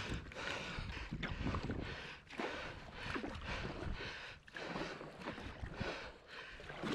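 Kayak being paddled: paddle blades dipping and pulling through the water in irregular splashes, with water sloshing against the hull.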